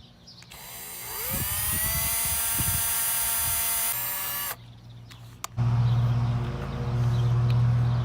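Small electric drill spinning up with a rising whine, then running steadily while boring a small pilot hole for a screw in the plastic switch holder, and stopping abruptly about four and a half seconds in. About a second later a loud, steady low hum starts and carries on.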